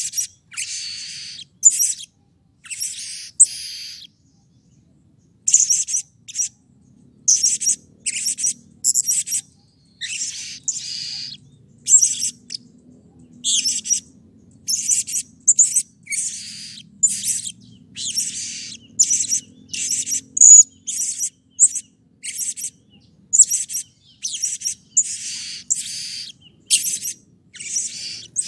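A male blue-crowned hanging parrot calling over and over: short, shrill, very high notes, often in quick pairs or runs, with one short pause about five seconds in.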